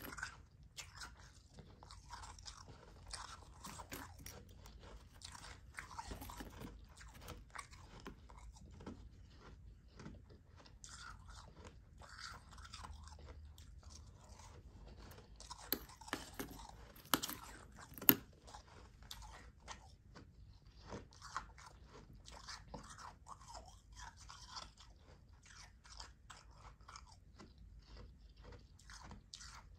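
Close-up chewing and crunching of soft, powdery ice: a steady run of quick, crisp crunches. Partway through come a few sharper, louder clicks.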